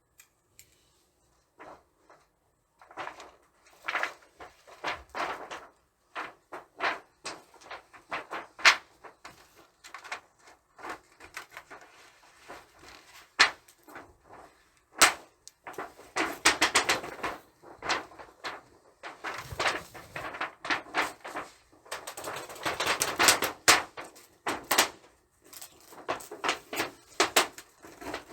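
Thin titanium camp-stove panels being handled and fitted together: irregular clicks and light metallic knocks, with two longer stretches of scraping and rattling about halfway through and near the end.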